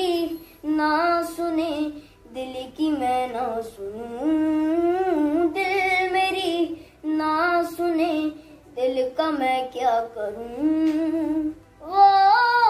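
A boy singing a slow Hindi-Urdu song, unaccompanied, in gliding, ornamented phrases broken by short pauses for breath.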